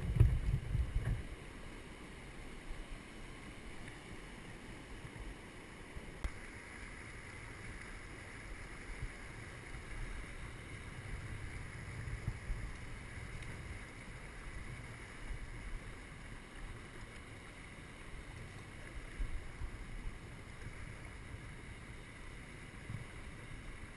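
Kern River water running steadily past, with wind rumbling on the microphone. A few low thumps and splashes come in the first second.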